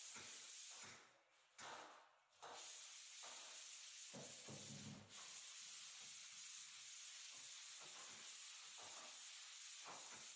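Near silence: a faint steady hiss that cuts out briefly twice a second or two in, with a faint rough scrape about four seconds in.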